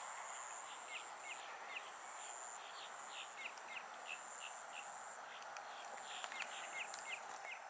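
Faint insects trilling in a high, pulsing drone, with short falling chirps repeating a few times a second, over a steady outdoor hum.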